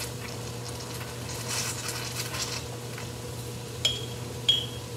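Browned ground beef sizzling in a hot wok as grease is drawn off with a stainless steel turkey baster, over a steady low hum. Near the end, two sharp ringing clinks of the metal baster against the glass jar that holds the grease.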